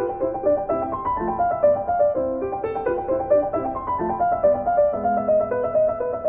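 Background piano music: a flowing run of quick notes.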